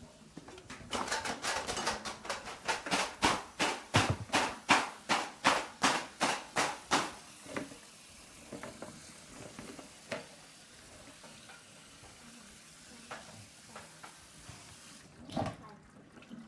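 Freshly rinsed noodles shaken in a colander to drain off the water: a quick rhythmic run of splashing rattles, about three a second, for some six seconds. Then a few light knocks, and one louder knock near the end.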